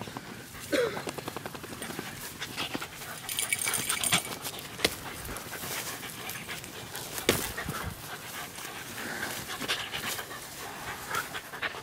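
A beagle panting close by, with rustling of grass and brush.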